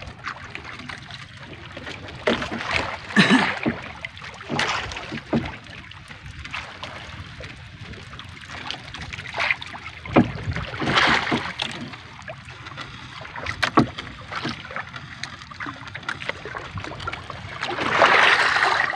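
Water sloshing and splashing against the hull of a small wooden outrigger boat, coming in uneven surges with the loudest near the end, with a few sharp knocks in between.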